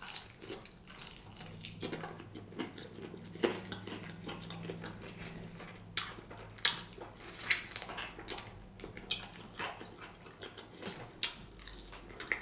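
Close-miked eating sounds: biting and chewing batter-fried chicken wings, a run of irregular mouth clicks, smacks and crunches, the loudest about three and a half, six and seven and a half seconds in.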